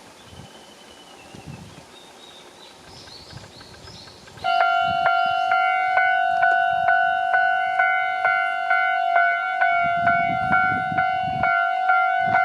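Japanese level-crossing warning bell starting suddenly about four and a half seconds in, then ringing its repeated electronic clang at a little over two strokes a second, the signal that a train is approaching. Before it, a faint steady hiss.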